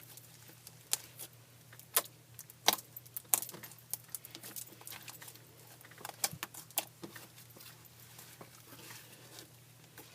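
Homemade glue slime being squished and poked by hand, giving irregular sharp clicking and popping sounds, some louder than others, over a steady low hum.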